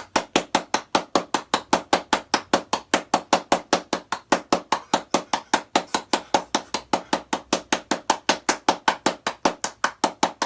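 Rapid, evenly spaced knocks, about five or six a second, keeping a steady rhythm.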